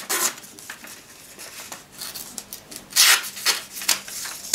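Paper rasping and rustling as the partly serrated blade of an Extrema Ratio Task C knife is drawn through a hand-held sheet, in several short strokes, the loudest about three seconds in. The blade snags and tears the paper rather than slicing it cleanly.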